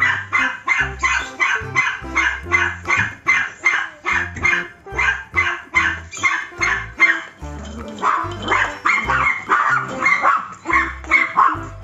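A dog barking rapidly and without a break, several barks a second, over background music with a repeating bass line.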